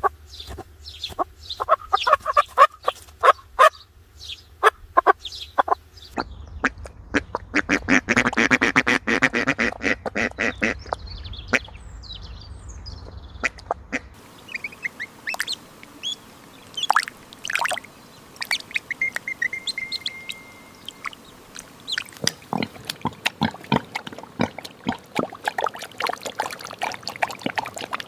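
Ducks quacking in rapid runs of short calls, with other bird calls among them. The recording changes character every several seconds, as separate clips follow one another.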